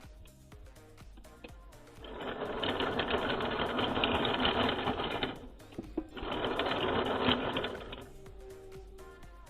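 Toy RC rock crawler's small electric motor and gears whirring in two runs, the first about three seconds long and the second about two, over background music.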